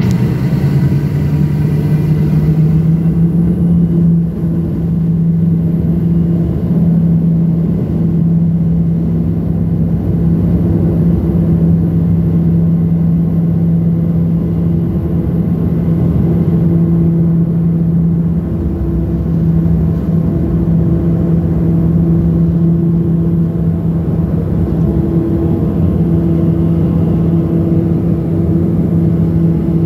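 Let L-410 Turbolet's twin turboprop engines and propellers at take-off power, heard from inside the cabin through the take-off run and lift-off. A loud steady drone with a strong low tone that barely changes in pitch.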